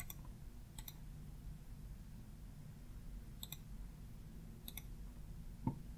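Faint computer mouse clicks, a few single ones spread out and a quick double click about three and a half seconds in, over a low steady room hum; a soft low thump near the end.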